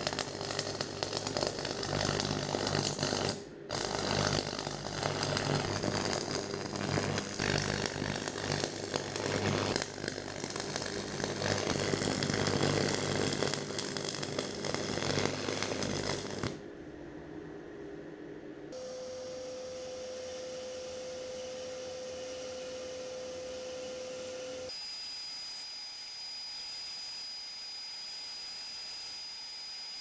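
Stick (arc) welding: the electrode's arc crackles and sputters steadily, breaks off for a moment about 3.5 s in, restarts, then stops about 16 s in. For the rest, quieter steady tones: first a low hum, then a high whine, each with a hiss.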